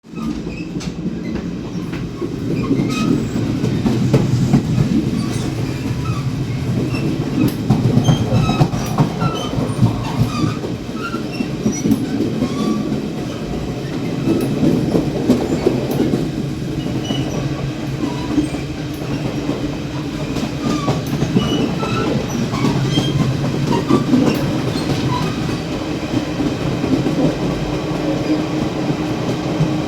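Running noise in the gangway connection between a Chu-Kuang Express passenger coach and its baggage car: a steady heavy rumble with wheels clacking over rail joints and scattered short squeaks and creaks.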